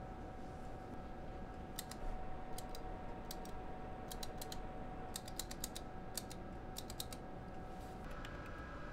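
Hand tally counter clicking about a dozen times at an irregular pace, some clicks in quick pairs, as beads are counted by eye. A faint steady hum sits underneath and stops near the end.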